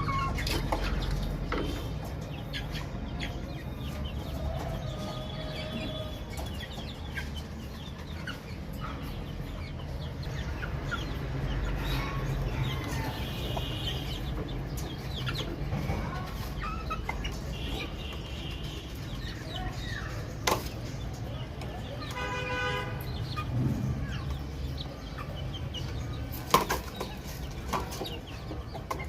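Baby chicks peeping and chirping in scattered short calls, one call with a clearer ringing pitch about two-thirds of the way through. A few sharp knocks stand out over a steady low rumble.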